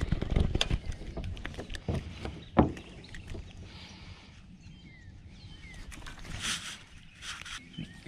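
Irregular knocks and clicks from handling fishing gear and the camera on a small boat, densest in the first few seconds with one sharp knock about two and a half seconds in, then quieter with a couple of soft rustles near the end.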